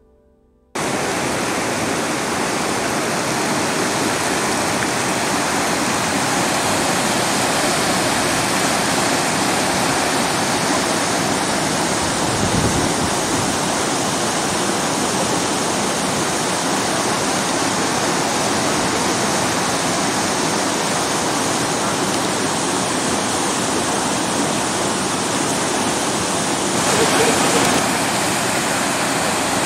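Rushing water of river rapids: a steady, loud, even noise that starts abruptly about a second in.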